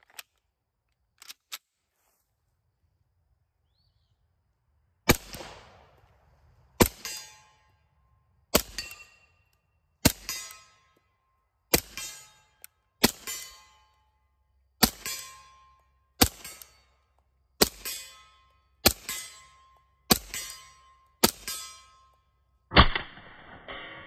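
Suppressed H&K Mark 23 .45 ACP pistol with a SilencerCo Osprey 45 suppressor: a few light metal handling clicks, then twelve shots about one and a half seconds apart, each followed by a short metallic ring, and one more, duller shot near the end.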